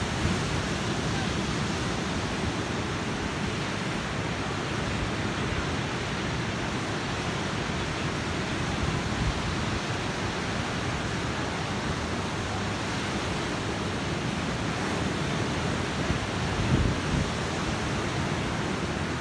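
Steady rush of ocean surf breaking and washing up onto the beach, with a brief louder low rumble near the end.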